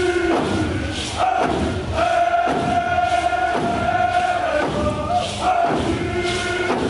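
A large group of voices chanting a canoe family's warrior song in unison, holding long notes over a steady thud of drumbeats.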